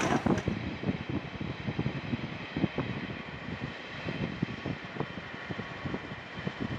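Steady rumble of a moving vehicle with small irregular knocks.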